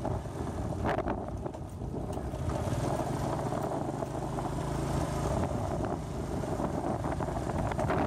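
A vehicle's engine running as it travels along a rough dirt road, with wind buffeting the microphone; a low engine hum comes up for a couple of seconds in the middle.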